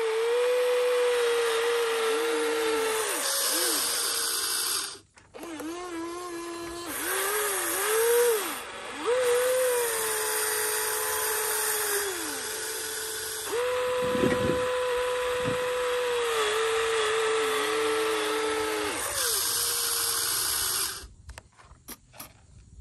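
Electric gear motors of a Huina RC excavator whining as the boom, arm and bucket move, the pitch sliding up and down as each motion starts and stops. The whine breaks off briefly about five seconds in and stops a couple of seconds before the end.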